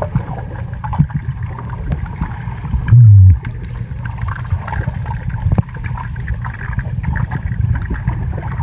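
Muffled underwater sound from a camera submerged in a swimming pool: a low water rumble with faint scattered clicks, and a brief loud low hum about three seconds in.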